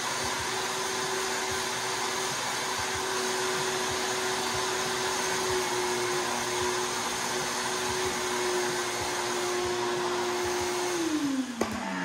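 Wet/dry shop vacuum running steadily as its nozzle is worked over a carpeted panel, then switched off near the end, its motor whine falling in pitch as it spins down. A single knock comes just after it is switched off.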